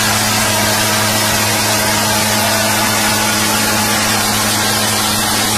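Diesel tractor engines running hard and steady under load as two tractors strain against each other on a chain, a constant low drone with a dense hiss over it.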